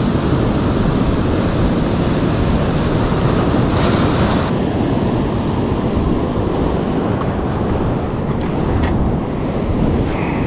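Sea surf washing on a rocky shore, mixed with wind buffeting the microphone. The higher hiss drops away abruptly about four and a half seconds in, and a few faint clicks come near the end.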